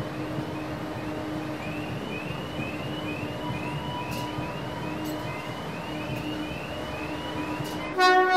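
A locomotive passing slowly while its warning siren repeats short rising whoops about twice a second over the steady rumble of the engine. Near the end a loud horn blast starts.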